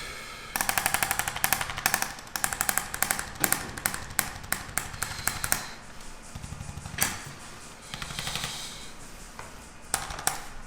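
Rapid machine-driven hammering that comes in runs: a long run through the first half, then shorter, fainter spells and another run near the end.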